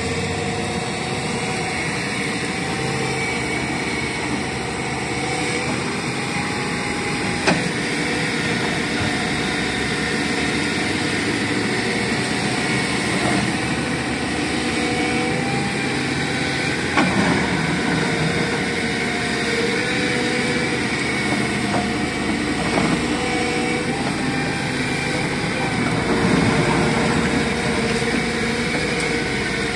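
Hyundai Robex wheeled excavator's diesel engine running steadily as it digs, with a whine that wavers slightly in pitch. A few sharp knocks stand out, the loudest about seven and seventeen seconds in.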